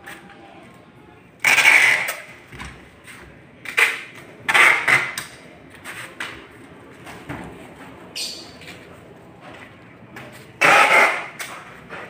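Handling noise from a plastic-wrapped PVC door panel being shifted and moved: rustling and scraping in several noisy bursts, each under a second, the loudest near the start and near the end.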